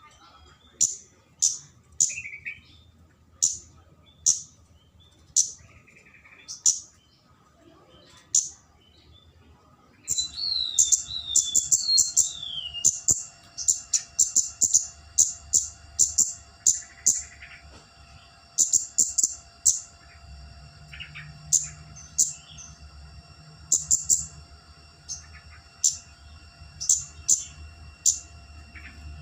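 A kemade, a flowerpecker, giving short, sharp, very high 'cit' calls, about one a second at first. About ten seconds in they become a faster, busier run of chirps. These are the calls of a bird challenging rivals, used as a lure recording.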